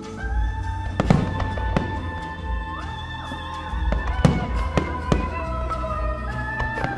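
A pyromusical: fireworks shells bursting with several sharp bangs over music with long held notes played through the show's loudspeakers.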